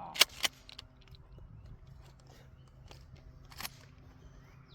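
Gun being handled: two quick sharp clacks near the start, a scatter of small clicks, and one more clack about three and a half seconds in.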